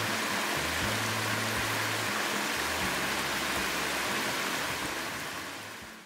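Steady rush of flowing water under background music with sustained low notes; both fade out near the end.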